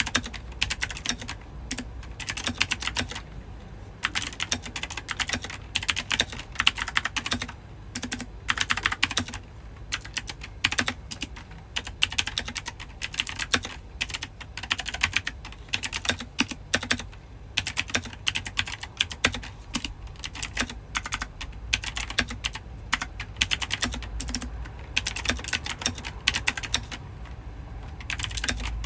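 Typing on a mechanical keyboard with keycaps fitted: fast runs of key clicks in bursts, broken by short pauses.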